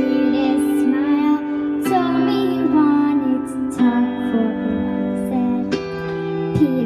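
Two girls singing into microphones over an accompaniment whose held chords change about every two seconds.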